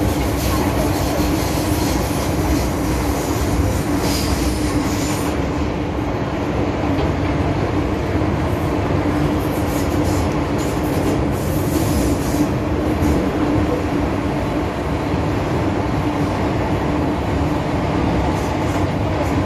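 MTR M-Train electric multiple unit running on the Tsuen Wan Line: a steady loud rumble of wheels and running gear with a constant hum, and brief hissing or squealing from the wheels a few times.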